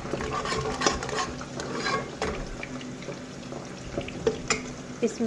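A ladle stirring and scraping in a pan while food fries, in irregular strokes, with a sharper clink about four and a half seconds in.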